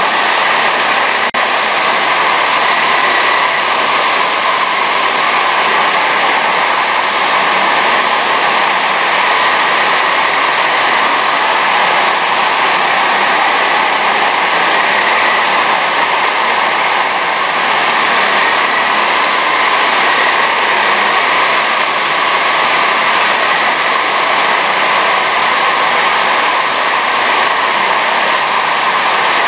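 Steady, loud din of racing karts' 6.5 PS engines running around an indoor kart track, blurred into an even roar with no single engine standing out.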